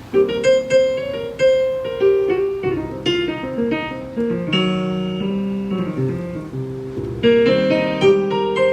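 Live keyboard music: a melodic run of quickly struck notes and chords, with a plucked, guitar-like ring to each note.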